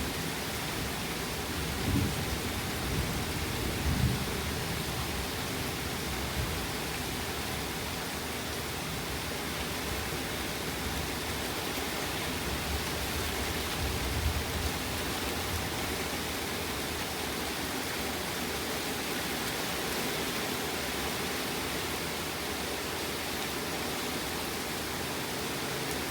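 Steady rain during a thunderstorm, with low rumbles of thunder swelling about two and four seconds in and again around fourteen seconds in.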